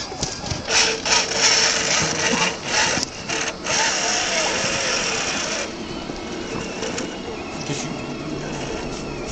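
Electric drive motor and gearbox of an RC scale Tatra T813 truck whirring in surges as it crawls over broken asphalt slabs, with a few sharp clicks and knocks. About six seconds in the whirring eases to a quieter, steadier whine that wavers in pitch.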